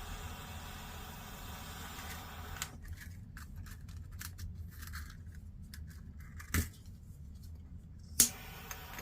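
A few light clicks and clinks of small metal tools being handled on a workbench, the sharpest one near the end, over a steady low hiss and hum.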